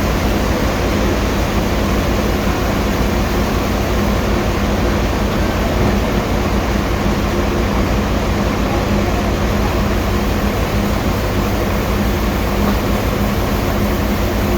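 Sawmill machinery running steadily: a constant motor hum under loud, even noise.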